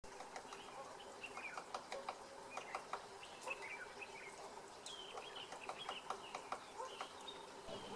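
Cardinal woodpecker pecking at a dead fig branch: light, irregular taps several times a second, with other birds chirping in the background.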